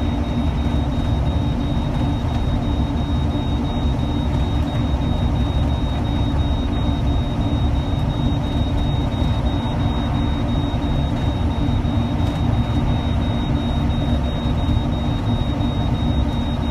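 Steady low engine rumble and hum inside the cabin of a moving passenger vehicle, with a thin, steady high whine over it.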